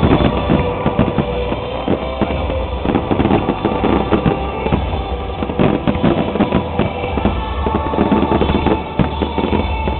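Fireworks display music with a heavy drum beat, mixed with the pops and bangs of fireworks going off throughout.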